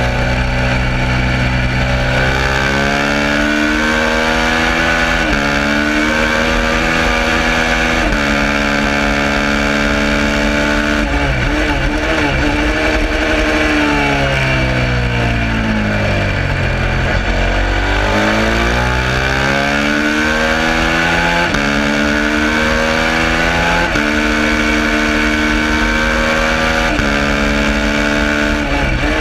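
Suzuki SV650 V-twin racing engine under hard acceleration, climbing in pitch and dropping with each quick upshift. Around the middle it winds down through a long deceleration into a slow corner, then pulls back up through several more upshifts.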